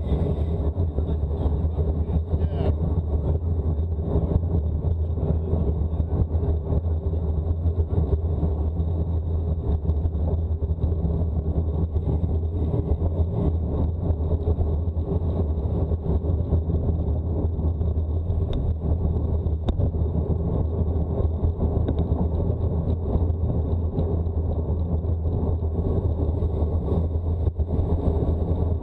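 Steady low rumble of a moving vehicle, even throughout with no changes.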